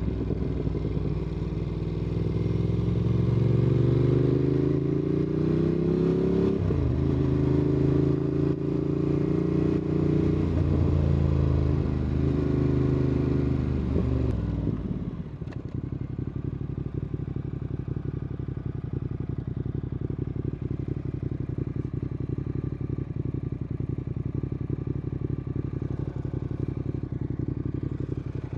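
Motorcycle engine under way, heard through a mic inside the rider's jacket. Its pitch rises and shifts several times as it pulls and eases off, then about halfway through it drops and settles to a steady idle.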